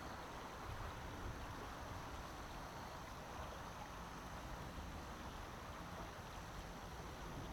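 Faint, steady low rumble and rushing noise from a 113 series electric train approaching slowly in the distance.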